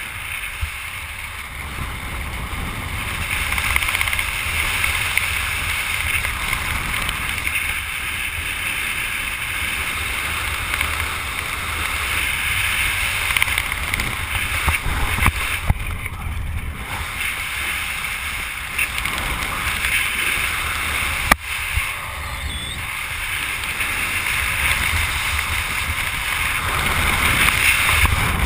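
Steady wind rushing and buffeting on a skydiver's body-worn camera microphone during the descent under a parachute canopy. A single sharp click about three-quarters of the way through.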